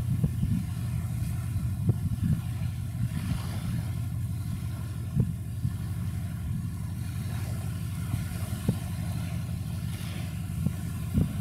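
Steady low rumble of ship engines from a large container ship and its tug, with short low thumps every second or two.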